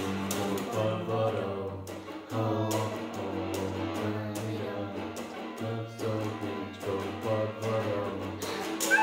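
Electric guitar strummed in a steady rhythm, accompanying a child singing a song.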